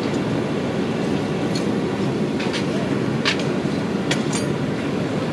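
A steady rushing noise with about five short, sharp metallic clinks scattered through it, as steel stock and tools are handled at a coal forge.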